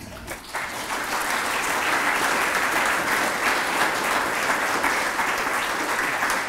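Audience applauding: clapping sets in about half a second in and quickly becomes a dense, steady applause.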